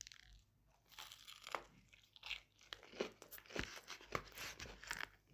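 Biting into and chewing a crunchy fish burger: a string of faint, irregular crunches and crackles starting about a second in.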